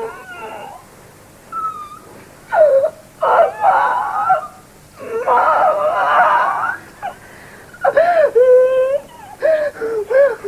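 A woman moaning and wailing wordlessly in her sleep: a string of drawn-out cries that rise and fall in pitch, with short gaps between them.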